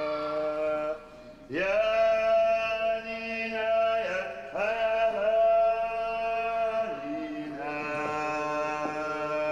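Music with chanted singing: long held vocal notes sounding at several pitches at once. After a short break about a second in, each new phrase starts with an upward slide in pitch.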